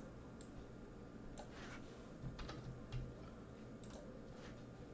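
Faint, scattered clicks of a computer keyboard and mouse, a few irregular keystrokes and button presses.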